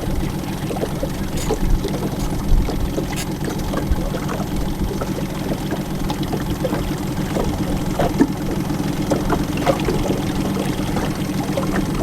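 Motorboat engine running steadily at trolling speed, with scattered short knocks over the hum.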